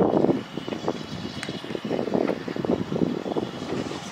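Steam locomotive working toward the listener, a fast, uneven run of exhaust beats.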